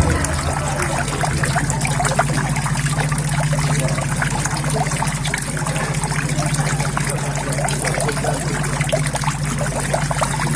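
Water steadily trickling and splashing into a koi pond, with many small splashes, over a steady low hum.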